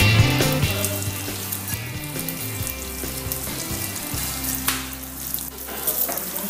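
Background music fading out over the first few seconds, then ham slices sizzling as they fry in browned butter in frying pans.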